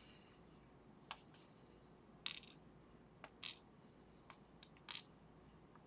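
Scattered small metallic clicks and taps, about eight in all, as the pin tumbler lock's plug and pins are handled while the lock is taken apart.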